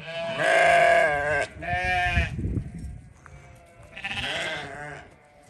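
Livestock bleating three times: a long, wavering bleat, a shorter one right after it, and a third about four seconds in.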